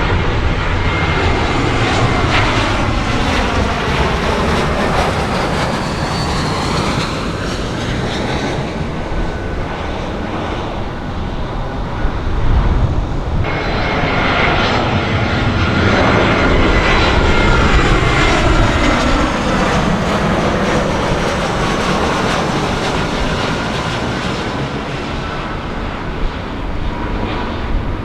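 Jet airliner engines running loud as the aircraft passes, the roar sweeping in tone as it goes by. About halfway through the sound changes abruptly and a second pass with the same sweeping roar follows.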